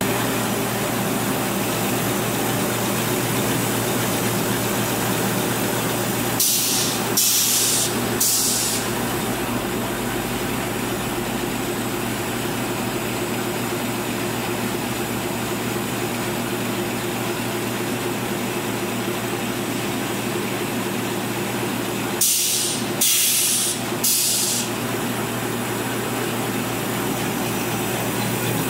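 Dispenser-napkin folding machine running with a steady hum. Twice, about six and twenty-two seconds in, a quick set of three short hisses of released compressed air cuts through it, typical of the pneumatic cylinders that work the machine.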